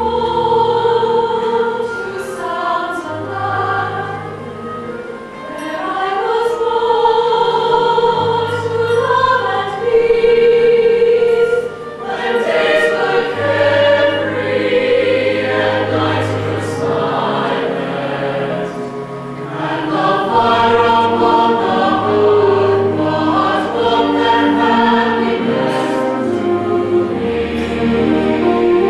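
High school concert band playing a slow piece in held, layered chords over a sustained low bass line, swelling and easing back a few times.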